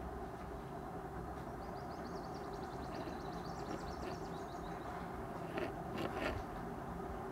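Steady background noise of a home room with no speech. A faint, fast, high twittering runs through the middle, and three short clicks come near the end.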